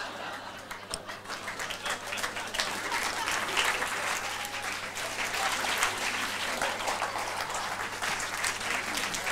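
Audience applauding, a dense clatter of many hands clapping that builds over the first couple of seconds and then holds steady.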